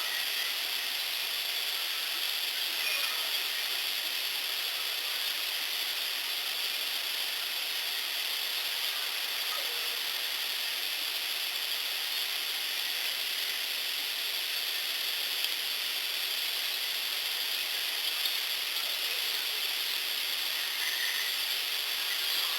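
Steady high hiss of an outdoor recording, with a few faint short chirps near the end.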